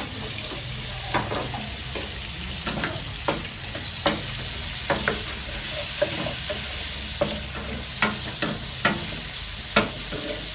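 Teriyaki chicken sizzling in a frying pan, with a utensil clicking and scraping against the pan every half second to a second as it is stirred. The sizzle grows stronger a few seconds in.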